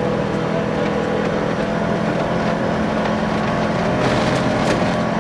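Volvo 240 rally car's engine running steadily under load, heard from inside the cabin, over the rush of tyres on gravel, with a few stones clicking against the underbody.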